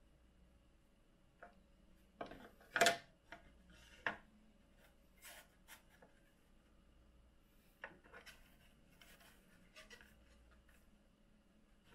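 Activated carbon filter sheet being handled and fitted into a 3D-printed filter housing: scattered soft rubbing and scraping, the loudest a short scrape two to three seconds in, with lighter rustles and ticks later on.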